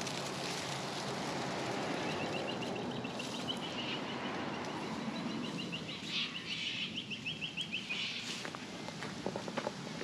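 A bird's rapid trill of quickly repeated high notes, running for about six seconds and ending abruptly, over a steady outdoor background noise that fades out about halfway through. A few sharp clicks near the end.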